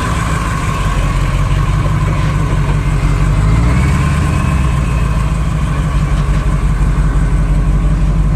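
Bus diesel engine running at low revs close by, with a steady low note that rises a little in pitch about four seconds in.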